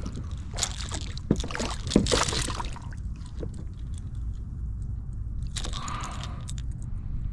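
Water splashing and sloshing at the side of a kayak as a small hooked snook is handled, with two sharp knocks about one and two seconds in and another brief splash near the end.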